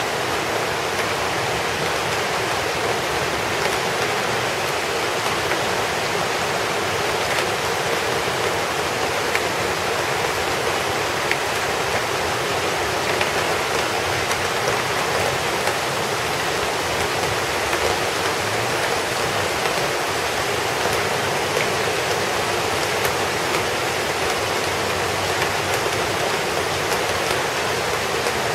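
Heavy rain: a steady, even hiss of downpour and running water, with a few faint ticks of single drops.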